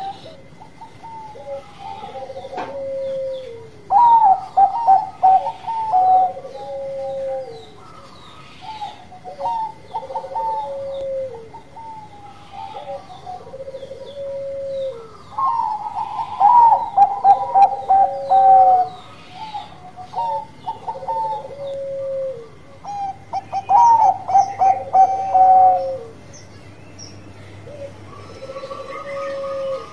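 Caged Bangkok-line zebra dove (perkutut) singing in full voice: repeated phrases of quick staccato coos, with a louder, fuller bout every several seconds and softer phrases in between.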